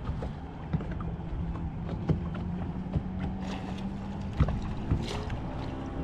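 Small boat on the water: a steady low hum that stops about four seconds in, with scattered sharp knocks and clicks over a background of wind and water noise.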